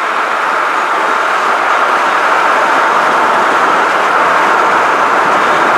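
Steady rush of air and tyre noise from a car driving at speed, heard through an open window, growing a little louder over the first couple of seconds.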